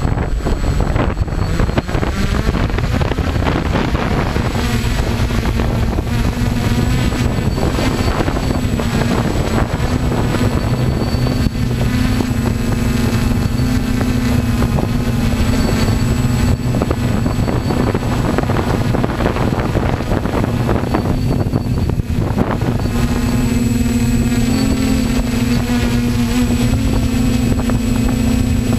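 Hexacopter's electric motors and propellers, heard from its own onboard camera, buzzing steadily with prop-wash wind on the microphone. The pitch climbs a few seconds in as it lifts off, then holds with small wavers as it hovers.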